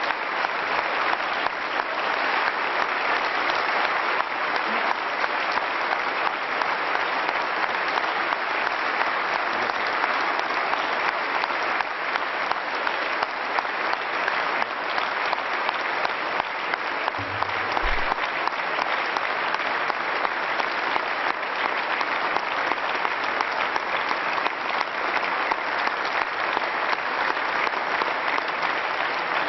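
Steady applause from a large crowd of people clapping together, dense and unbroken.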